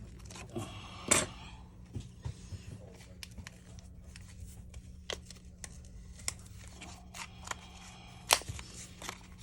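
Small scattered scrapes and clicks of hand tools being worked against a Samsung A52 smartphone during its repair, with two sharper clicks, about a second in and near the end, over a steady low hum.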